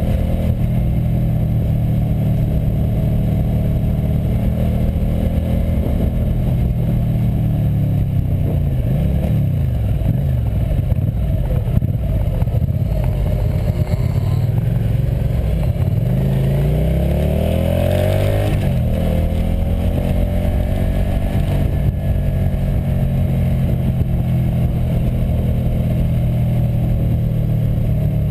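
Motorcycle engine running under way, picked up by a camera mounted on the bike. The revs drop and climb back up about a third of the way in, then drop and climb again around two-thirds of the way through, with a short rush of hiss at that point.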